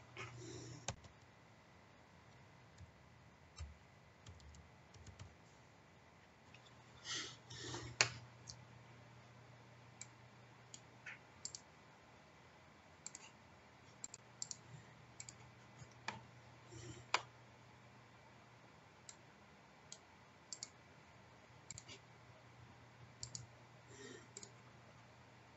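Faint, irregular clicks of a computer mouse and keyboard as commands are entered at a desk, spaced a few per second at most with pauses between, over a low steady hum.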